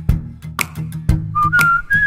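Background music: a whistled melody over plucked acoustic guitar chords with a light ticking beat. The whistle comes in about halfway through and steps up in pitch.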